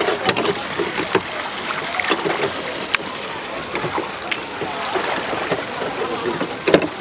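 Wooden oars of a small rowboat pulling through pond water, splashing, with a few sharp knocks scattered through.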